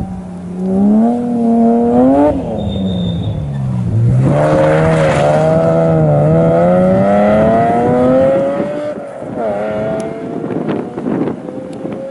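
BMW 3 Series (E36) rally car at full stage pace. The engine revs up, breaks off about two seconds in and sinks to its lowest pitch around four seconds, with a loud rush as it passes close. It then climbs steadily as the car accelerates away, shifting again and fading near the end.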